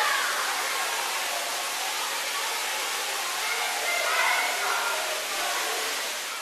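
Steady rushing hiss filling the space, with children's voices faint underneath that rise briefly about three and a half seconds in.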